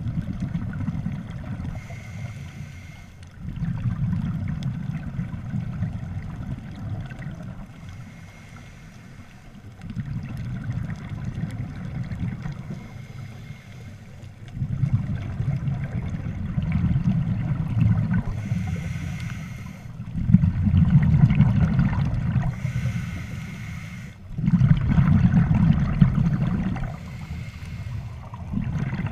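Scuba diver breathing through a regulator, heard underwater through the camera housing. A short hiss on each inhale is followed by a low rumble of exhaled bubbles lasting a few seconds, in a cycle that repeats every several seconds.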